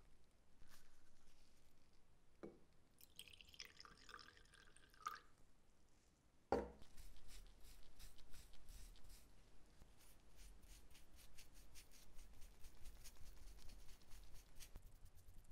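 Quiet small-scale work with liquid gun blue: a short wet trickle a few seconds in, then a single sharp knock. After that, a swab brush dabs and scrubs the bluing over the pitted steel of a hatchet head, making a long run of soft, fine clicks.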